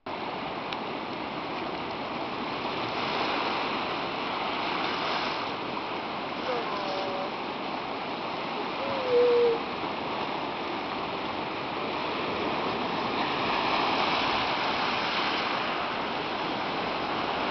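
Surf washing steadily on the beach, with a few short calls from sea lions about six and a half seconds in and a louder, slightly rising call about nine seconds in.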